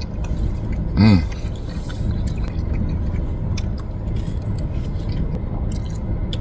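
A man chewing a bite of pork chop, with a short hummed "mm" about a second in, over a steady low hum.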